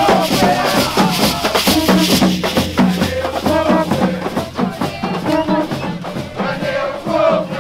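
Guadeloupe carnival 'groupe à po' street band: skin drums beaten in a fast, dense rhythm with rattling shakers, and many voices chanting together over them.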